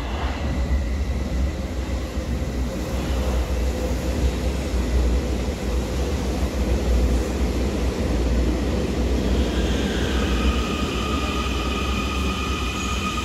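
Munich U-Bahn metro train running into an underground station: a loud, steady rumble of the train with rail noise. From about nine and a half seconds in, a steady high whine of several tones joins in over the rumble.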